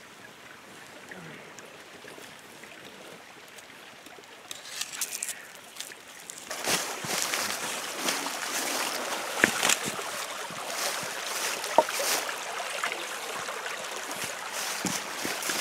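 Footsteps crunching and rustling through dry leaf litter and brush, starting about six seconds in, with a couple of sharper clicks among them. Before that there is only a faint steady hiss.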